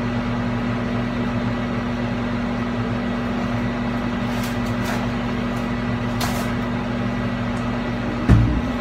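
Microwave oven running with a steady low hum. A few light clicks of a cardboard box being handled, and a wooden cabinet door knocks once near the end.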